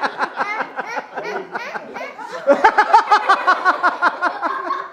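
Children laughing, a rapid run of short, high-pitched laughs that grows louder about two and a half seconds in.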